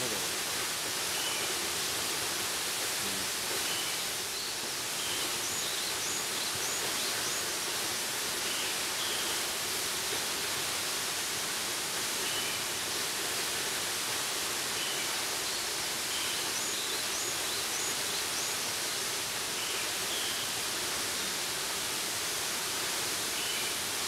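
A tall plunge waterfall rushing steadily: an even hiss of falling and splashing water, strongest in the high range.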